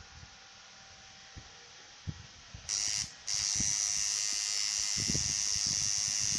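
Tattoo machine buzzing as the needle works into the skin: it starts a little under halfway through, cuts out for a moment, then runs steadily.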